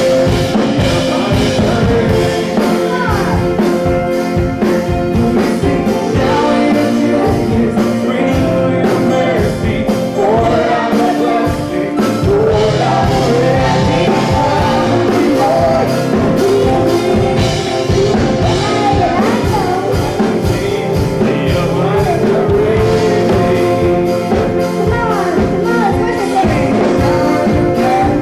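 Church choir singing a worship song with live band accompaniment keeping a steady beat.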